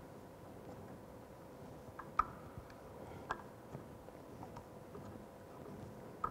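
Faint, irregular clicks and ticks from PTFE thread-seal tape being wound by gloved hands onto a threaded plastic pipe fitting, the loudest about two seconds in, over a faint steady hum.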